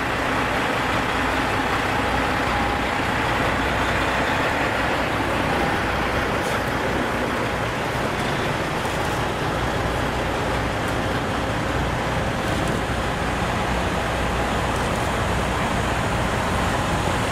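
Heavy diesel prime movers driving slowly past, with steady engine and tyre noise that holds level throughout. A white Freightliner Argosy cab-over passes close by near the end.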